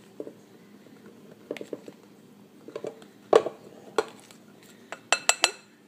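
Glass mixing bowl knocking and tapping against a bread machine's metal pan as flour is poured and shaken out. Scattered light knocks, the loudest about three seconds in, then a quick run of several sharp taps near the end.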